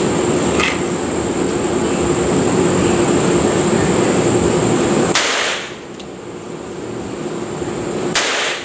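Two shots from a Rexio .22 Long Rifle nine-shot revolver, one about five seconds in and one about three seconds later, each sharp and cut off suddenly. A steady machine hum with a faint high whine runs under the first half and drops away at the first shot.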